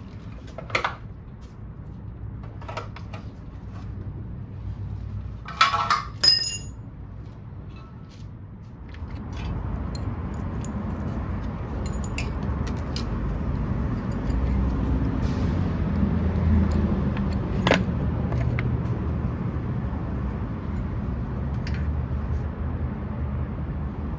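Metal tools and engine parts clinking and rattling, with a pair of loud ringing clinks about six seconds in. From about nine seconds a steady low rumble sets in and continues.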